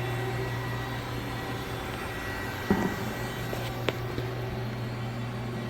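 Steady low hum of an industrial machine running, with a short knock about two and a half seconds in and a sharp click about a second later.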